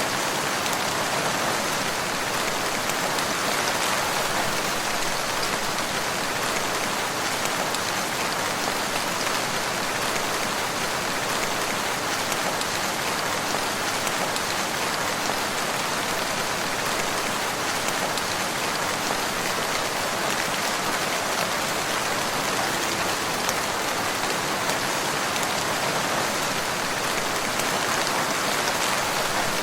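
Steady rain falling, an even hiss with a fine patter of drops and no change in strength.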